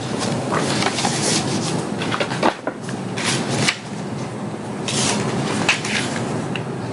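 Cardboard and paper packaging being handled and opened: irregular rustles and scrapes with a few sharp knocks, over a steady low background noise.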